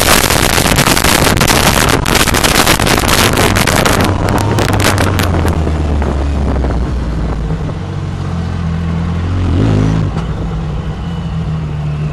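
A Yamaha side-by-side running fast on a dirt track: a loud rushing noise with many rattles over the engine. About four seconds in it eases off to a steady, low engine note as the car slows.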